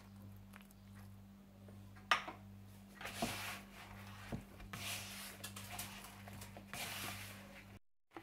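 Hands kneading a stiff flour-and-ghee dough: faint rubbing and a few soft knocks, over a steady low hum. The sound drops out completely for a moment near the end.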